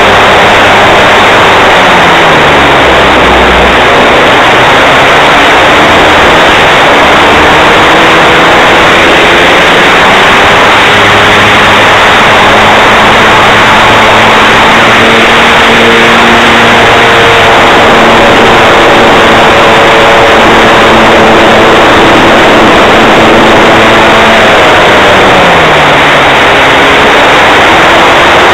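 Engine of a radio-controlled aerobatic model plane, heard from a camera on the plane itself under heavy wind rush. Its pitch holds at different levels and changes with the throttle through the manoeuvres, dropping clearly a few seconds in and again near the end.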